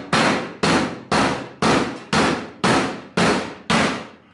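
Hammer blows driving a chisel into the sheet-steel seam of a Sentry safe: eight evenly spaced metallic strikes, about two a second, each ringing briefly.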